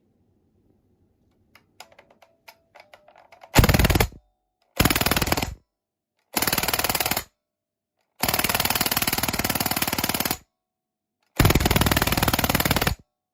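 Toytec P90 gas airsoft gun firing five full-auto bursts of rapid pops, the fourth burst the longest, after a few faint clicks.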